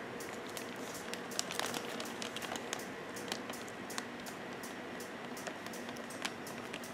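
Plastic model-kit parts bag crinkling as a clear plastic parts tree is handled, giving soft scattered crackles and clicks over a faint steady hum.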